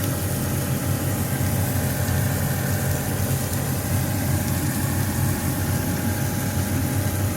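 Gas burner running steadily under a cooking stone: a low rumble with an even hiss.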